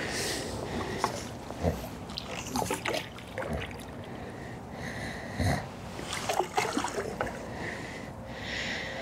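Water splashing and sloshing as a hooked carp is played at the surface, with scattered sharp knocks and clicks of fishing tackle being handled.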